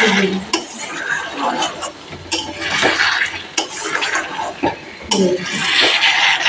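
A metal spatula stirring thick, wet chicken curry gravy in a metal kadai, with squelching sweeps about every three seconds and sharp clicks of the spatula against the pan. The chicken is being gently fried down (kosha) in its masala.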